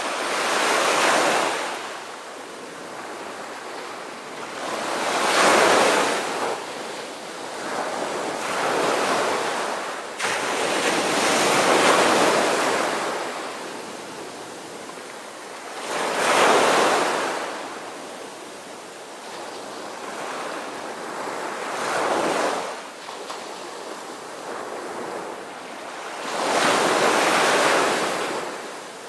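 Waves washing in and breaking, each surge swelling and fading, about seven in all at intervals of four to six seconds.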